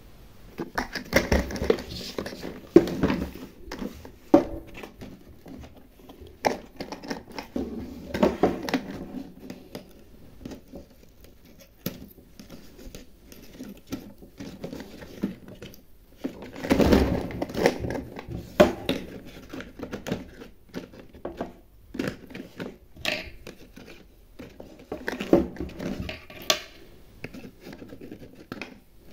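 Printed cardboard packaging of a toy kitchen set being torn and cut open by hand: irregular bursts of crinkling, tearing and sharp clicks.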